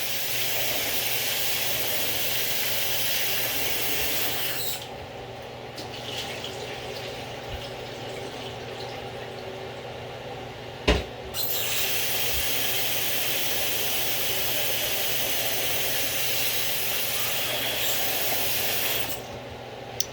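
Kitchen tap running into the sink as rice is washed. The water stops about five seconds in, a sharp knock comes near eleven seconds, and then the tap runs again until shortly before the end.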